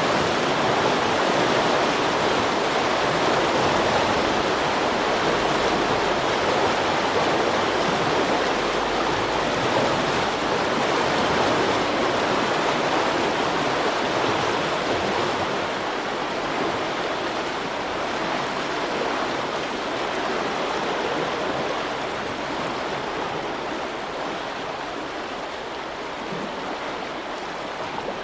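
Water rushing at a river lock, a steady churning rush that slowly grows quieter over the second half.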